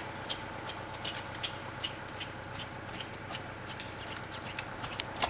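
Horse trotting on a longe line in a sand arena, with light, regular beats at each stride, about three a second.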